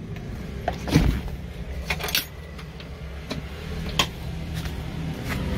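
A few sharp knocks and clicks, the strongest about a second in, over a steady low hum.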